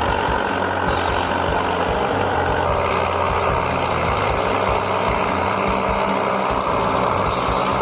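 A heavy vehicle engine running steadily.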